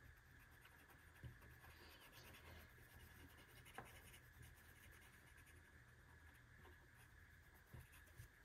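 Faint scratching of a black marker colouring in on marker paper, with a few light clicks.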